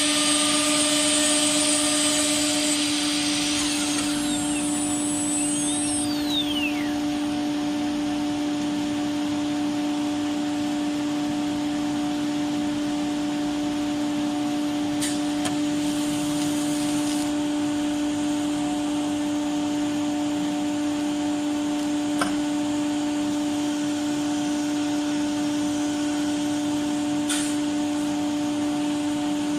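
CNC nesting router running: a steady machine hum with a constant pitched tone, a louder hiss over the first few seconds that eases off about three to four seconds in, and a few brief clicks.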